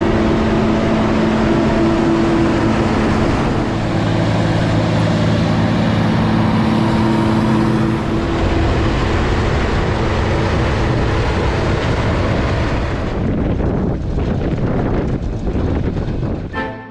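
Diesel engine of an AGCO DT240 tractor running steadily with a droning hum. The sound shifts about halfway through and turns duller near the end.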